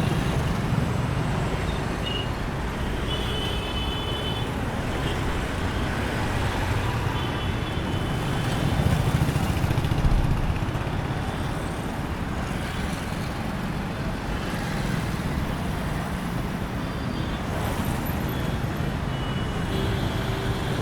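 City street traffic: a steady rumble of car and truck engines and tyre noise, with one vehicle passing close and swelling loudest about nine to ten seconds in.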